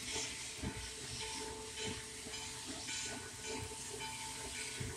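Western Maryland 1309, a 2-6-6-2 articulated steam locomotive, working toward the listener from a distance: faint hissing steam with soft, uneven exhaust beats.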